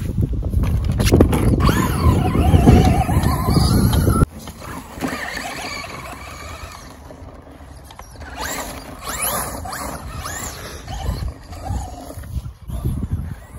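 Brushless electric motor of a Traxxas Slash VXL RC car whining, its pitch rising and falling as it speeds up and slows down, over a heavy low rumble. The sound drops off suddenly about four seconds in, and the whine comes back quieter near the middle.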